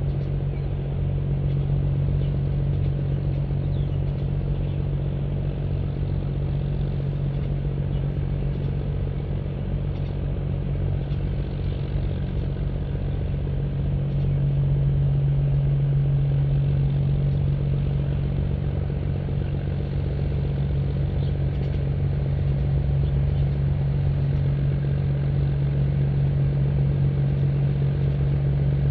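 A steady engine drone with a low hum, running evenly without a break and growing a little louder about halfway through.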